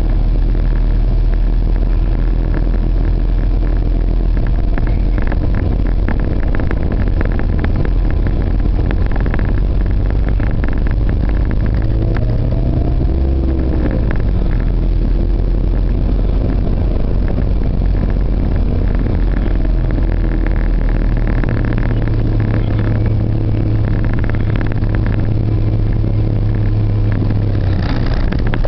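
Car engine and road noise heard from inside the cabin while driving slowly: a steady low rumble. About twelve seconds in, the engine note briefly rises and falls.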